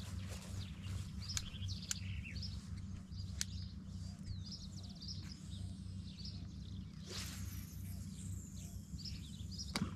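Birds chirping and calling, many short calls one after another, over a steady low hum.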